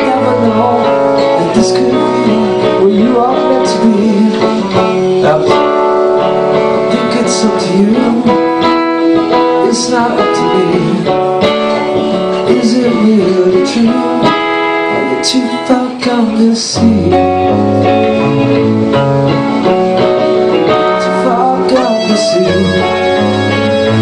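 Rock band playing live: electric guitars and bass guitar over a drum kit, with cymbal crashes cutting through. The band drops out briefly about sixteen seconds in.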